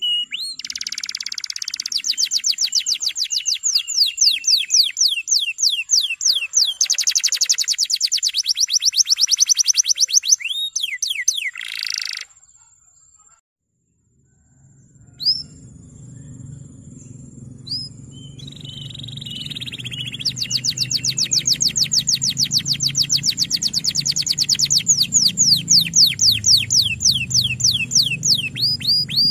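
Male domestic canary singing long rolling trills of rapid, evenly repeated downward-sweeping notes. The song breaks off for a couple of seconds about twelve seconds in, then picks up again over a low steady hum.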